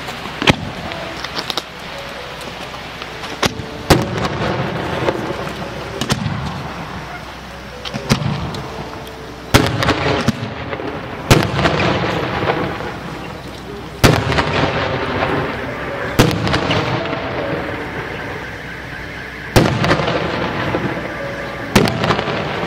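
Fireworks salute: about ten aerial shells burst with sharp bangs every two to three seconds, each bang trailing off over a second or two.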